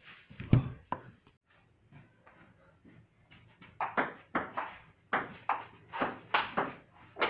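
Table tennis ball clicking off the bat and the table in a rally: sharp separate ticks, coming quickly and regularly at about three a second in the second half. A heavier knock sounds about half a second in.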